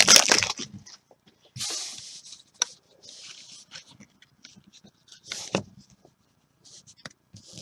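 A trading card pack's wrapper being torn open and crinkled by hand, in a few short scratchy bursts with an occasional sharp click as the cards are handled.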